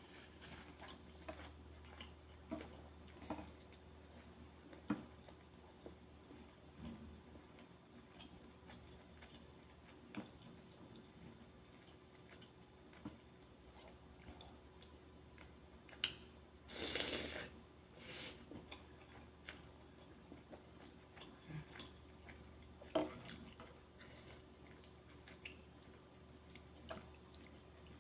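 A person eating spicy Thai suki noodles: quiet chewing with scattered small mouth and utensil clicks. About seventeen seconds in comes one louder, short breathy noise, with sharp clicks just before it and again near twenty-three seconds.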